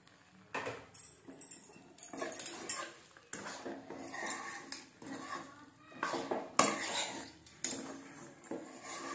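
Spatula scraping and stirring flour into a spice mixture in a metal kadhai, in irregular strokes about once or twice a second.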